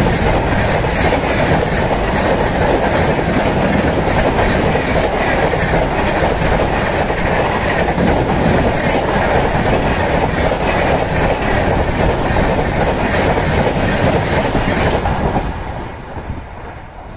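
Passenger coaches of a diesel-hauled express train rushing past at high speed, their wheels running loud and steady on the rails. The noise falls away quickly near the end as the last coach goes by.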